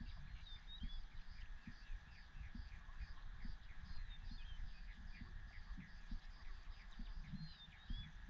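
Grassland ambience: a bird gives a short whistled up-and-down phrase about every three and a half seconds over a steady, regular high chirping of insects, with a faint low rumble underneath.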